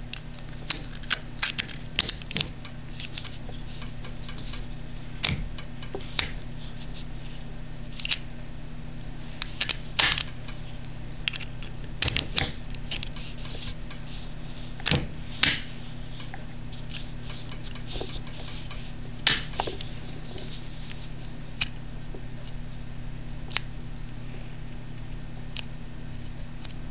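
Scattered sharp metallic clicks and clacks at irregular intervals as a Canadian Pacific railway switch lock is worked with its brass key, over a steady low hum.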